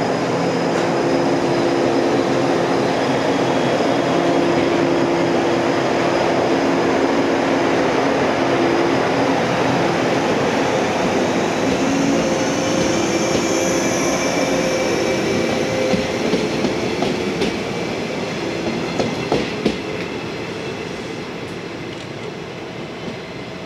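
Yellow JR West 115-series electric multiple unit running past close by and then away along the track. Its steady running noise fades in the second half, with a few sharp wheel clicks over the rail joints near the end.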